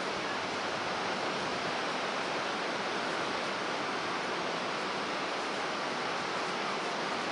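Rough storm surf breaking on a rocky shore, a steady rushing noise of waves and spray.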